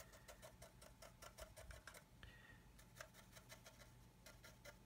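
Near silence: room tone with a faint, fast, even ticking and a low steady hum.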